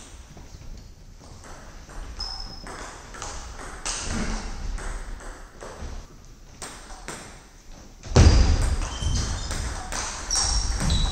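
Plastic table tennis ball clicking and pinging off the table and rackets, first as a few scattered hits and then as a rally near the end. A louder low rumble of noise comes in about eight seconds in.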